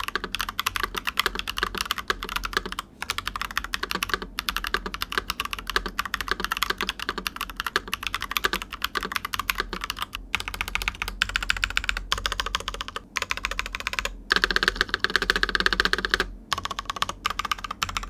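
Typing on a Keychron V1, a 75% ABS plastic tray-mount keyboard, fitted with tactile Green Jacket switches and no silicone dampener: a fast, steady run of key clacks, with a louder, denser flurry of keystrokes about 14 s in that thins out near the end. The board sounds somewhat hollow, which the reviewer puts down to leaving the silicone dampener out.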